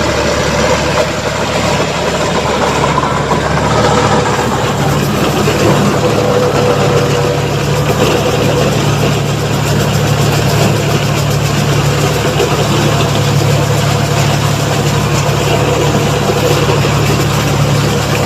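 A 45 HP tractor engine running steadily while driving a Redlands SBA 330 Extra Wide round straw baler, the engine and the baler's mechanism together making a loud, even machine sound.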